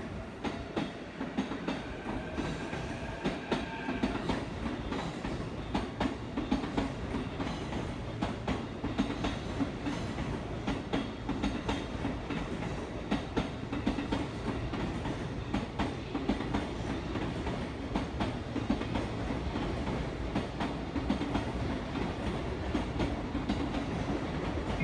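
Electric commuter train running along a track in a station, its wheels clicking over the rail joints. A faint rising whine sounds in the first few seconds as it pulls away.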